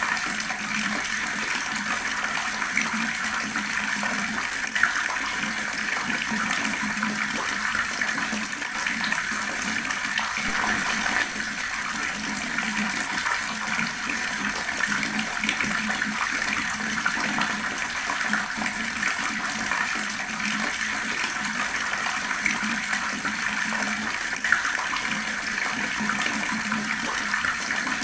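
Water tap running and gurgling steadily, with a couple of brief sharper splashes, one about five seconds in and one near the end.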